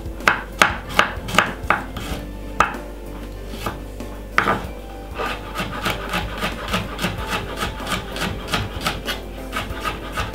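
Chef's knife chopping garlic on a wooden cutting board. It starts with a few spaced knocks of the blade on the board, then settles into quick, steady chopping of about five strokes a second from about halfway in.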